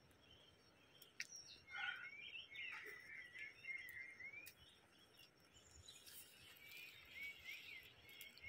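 Faint birds chirping: short, wavering whistled phrases repeating in two spells, over a low background hiss.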